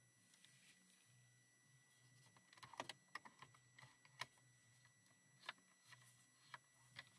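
Light plastic clicks from a Toyota Corolla's centre dashboard air vents as their louvers and adjuster tabs are moved by hand. The clicks come in an irregular string starting a couple of seconds in, with the sharpest two about three and four seconds in.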